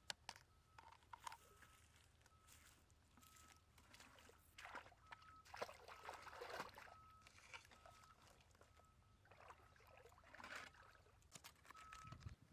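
Faint sloshing and splashing of shallow pond water as a person wades in and sets a plastic basket trap down in it. A faint short high note repeats about once a second underneath.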